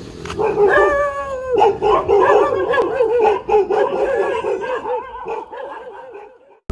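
Dog howling in alarm at a fake tiger pushed toward it: a long drawn-out note, then a rapidly wavering howl that fades and cuts off just before the end.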